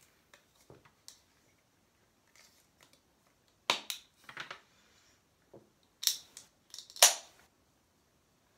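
Aluminium Coca-Cola can being shotgunned from a punched hole: a few sudden pops and splutters with short fizzing hisses, about four, six and seven seconds in, the last the loudest.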